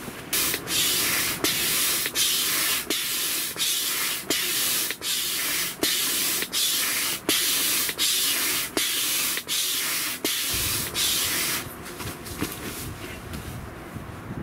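Hand-operated air pump inflating an air mattress: rushing air on each stroke in a steady rhythm of about three strokes every two seconds. The pumping stops near the end, followed by a low rustling of the mattress.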